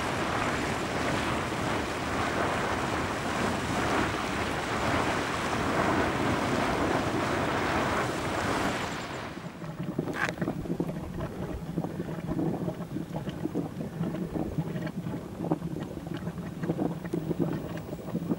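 Wind rushing steadily on the microphone. About nine seconds in it cuts to a quieter, irregular gurgling and popping from a small boiling hot spring vent over a low steady hum.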